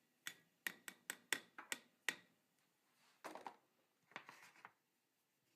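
A kitchen utensil tapped six times in quick succession, knocking diced onion into the skillet, then two brief scraping sounds.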